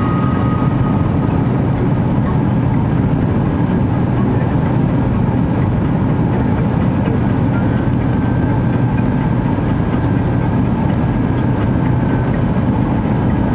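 Boeing 767-300ER cabin noise on the landing approach: the steady low rumble of the jet engine and airflow, heard from a seat beside the wing. A faint high whine joins about halfway through.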